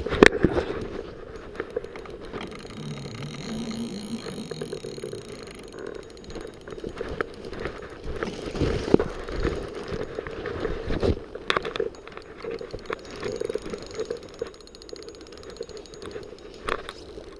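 Handling noise from a salmon rod being carried through bushes: irregular knocks, clicks and scrapes of the cork handle and spinning reel, with leaves and branches brushing past, over a steady rush of the river. The loudest knock comes right at the start.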